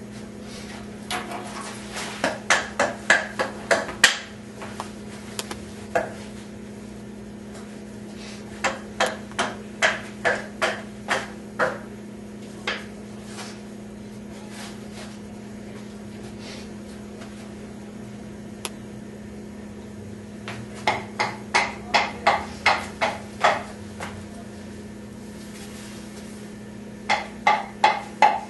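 Sharp knocks, like hammering, in four runs of about eight to ten strikes, three or four a second, over a steady low hum.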